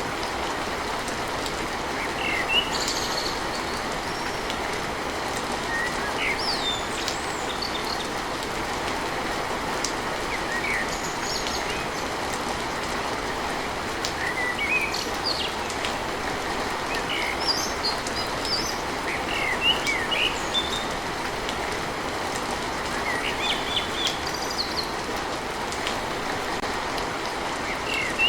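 Steady, even rain, with birds chirping in short calls every few seconds.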